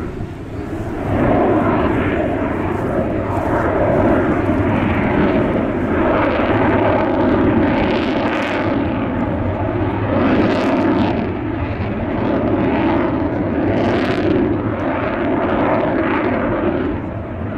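Mil Mi-26 heavy-lift helicopter running on the ground with its rotors turning: a loud, steady turbine-and-rotor rush and rumble that swells every couple of seconds.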